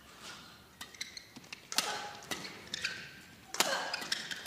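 Badminton rally: rackets striking the shuttlecock in a string of sharp cracks, the loudest about two seconds in and again past three and a half seconds, with short squeaks of shoes on the court floor between hits.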